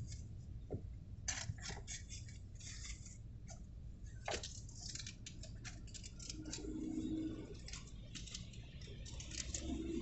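Light rain falling on a stopped car, heard from inside the cabin as scattered, irregular clicks of drops on the windshield and roof, over a steady low rumble of idling traffic.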